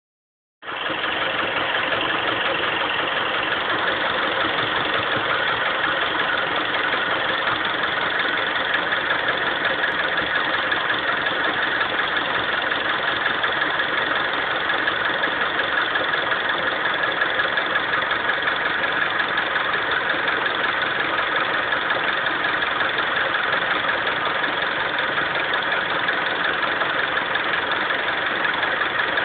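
Honda CR-V engine idling steadily with a fast, even knock in its running: the knocking the owner is recording.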